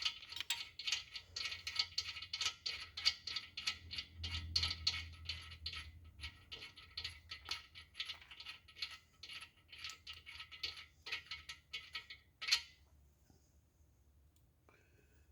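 Light metallic clicking and clinking, several irregular clicks a second, as small metal tools or parts are handled, ending with one sharper click about twelve seconds in.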